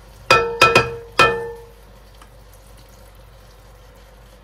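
A spoon knocking four times in quick succession against a hard rim, each knock ringing briefly with a clear tone, as thick pumpkin puree is spooned from a jar into a soup pot.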